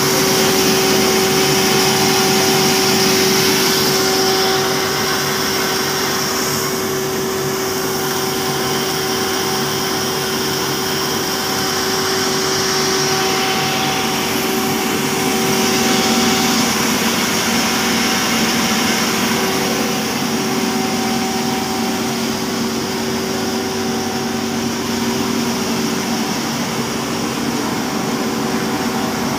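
40 hp cattle-feed pulverizer grinder running steadily under load while it grinds grain into feed. A constant hum with a higher whine sits over a rushing noise.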